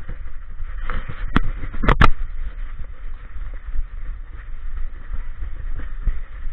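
Action camera strapped to a walking dog's back, picking up steady bumping, rubbing and low thuds from the dog's steps. A few sharp clicks sound close together between one and a half and two seconds in.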